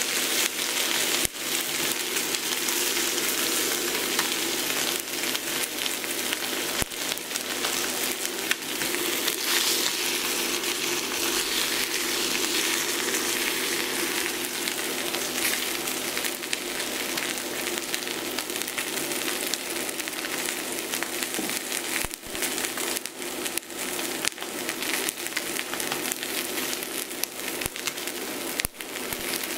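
Ribeye steak searing in a hot cast-iron skillet: a steady, dense sizzle with scattered sharp crackles and pops from the fat.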